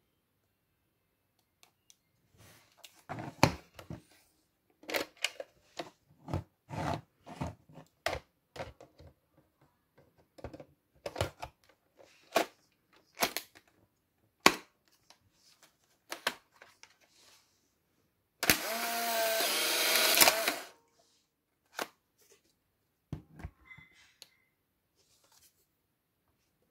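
Plastic clicks and knocks as a film pack is handled and pushed into a Polaroid 600 camera and its film door is snapped shut. Then the camera's motor runs for about two seconds, the loudest sound here, ejecting the dark slide from the new film pack, followed by a few more small clicks.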